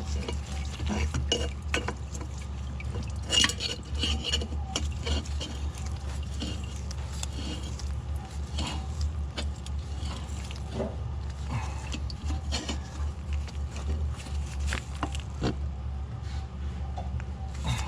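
Irregular metal clinks and scrapes of an oil filter wrench on a newly fitted oil filter as it is tightened, over a steady low hum.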